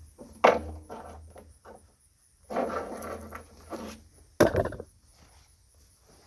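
Two sharp knocks about four seconds apart, with rustling and scraping in between: handling noise of objects being moved and set down.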